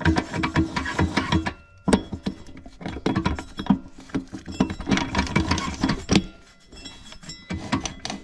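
Front planetary carrier of a 200-4R automatic transmission being twisted back and forth by hand inside the steel case, its metal parts clicking and rattling in several quick spells, with some ringing from the case.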